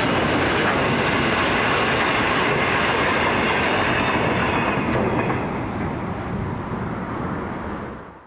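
Freight train wagons and container platforms rolling past on the rails, a steady rumble with wheel clatter. A little over five seconds in it grows quieter, then fades out at the end.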